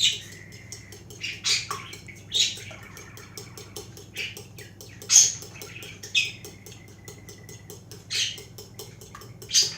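Eggs being beaten with salt in a bowl: a utensil clicks rapidly and steadily against the bowl's side, with louder knocks every second or two.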